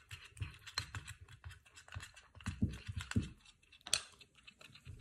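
A small spoon stirring a thick paste of honey, milk and cornstarch in a bowl: quick, uneven light clicks and scrapes of the spoon against the bowl.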